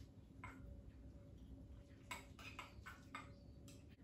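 Faint, scattered ticks and scrapes of a metal spoon stirring a thick yogurt and powder paste in a glass bowl, most of them clustered in the second half.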